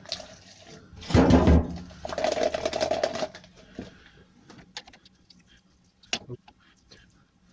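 PU thinners poured from a metal can into a plastic cup, glugging and splashing, loudest about a second in and trailing off after about three seconds. Then light clicks and clinks of small metal spray-gun parts handled at the cup, with one sharper click a little after six seconds.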